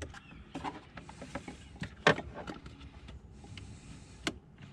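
Scattered clicks, knocks and light rattling from tools and parts being handled at the car, with a louder knock about two seconds in and a sharp click near the end.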